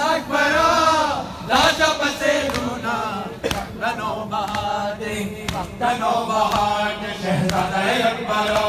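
Men's voices chanting a noha, a Shia mourning lament, together in a crowd, several voices holding long pitched lines. Sharp slaps come through every second or so.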